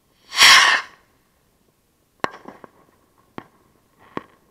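Fireworks: a loud, short hissing rush lasting under a second, then about two seconds later sharp cracks roughly a second apart, with smaller pops between them.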